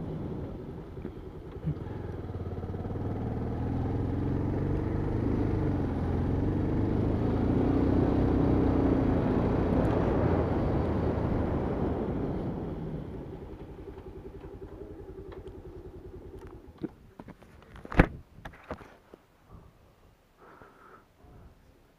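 Motorcycle engine running while riding, its pitch rising and falling gently, then fading out a little past half-way. Near the end come a few knocks and one sharp click.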